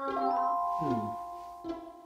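Comic background music: held tones with a falling glide about a second in, then plucked string notes starting near the end.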